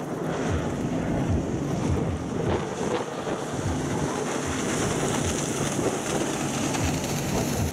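Outboard-powered speedboats running fast over open water, a steady engine drone mixed with the rush of spray, with wind buffeting the microphone.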